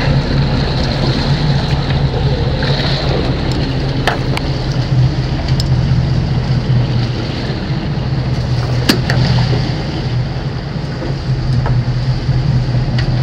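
Boat engine running with a steady low hum, with a few sharp knocks, two about four seconds in and one about nine seconds in.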